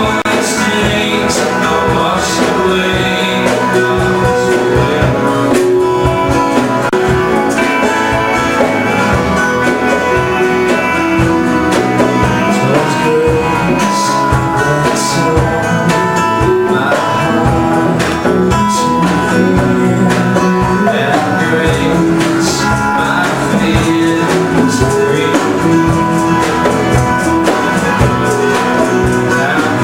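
Live band playing a worship song, with strummed guitars over a steady drum beat and singing.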